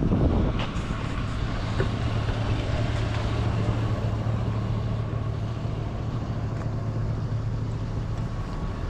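Vehicle driving, its engine and road noise making a steady low hum.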